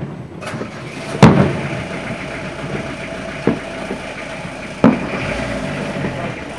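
Distant fireworks shells bursting: three booms, a loud one about a second in, a fainter one a little past three seconds and another loud one near five seconds, over a steady background hum.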